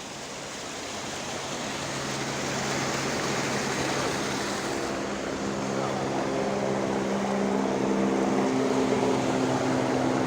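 A motor vehicle's engine running with a steady hum that grows gradually louder, over a constant rushing noise.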